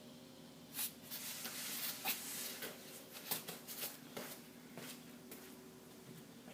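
Handling noises: a run of short rustles, scrapes and clicks from about a second in until about five seconds in, over a faint steady hum.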